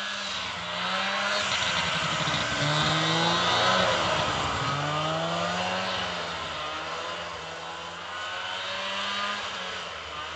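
1989 Arctic Cat Jag 340 snowmobile's two-stroke engine revving as the sled is ridden past. It is loudest about four seconds in, where its pitch drops sharply and then climbs again as it pulls away.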